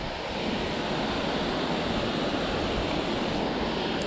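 Steady wind noise buffeting the microphone, mixed with water lapping at the shore.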